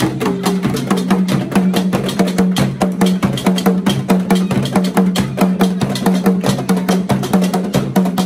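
Ghanaian traditional drum ensemble: rope-tensioned wooden barrel drums struck with wooden sticks, playing a fast, steady rhythm of sharp, woody stick strikes over booming low drum tones.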